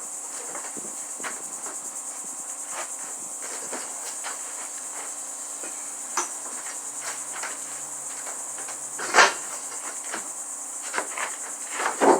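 Steady high insect chirring throughout, with scattered light knocks and one sharp strike about nine seconds in.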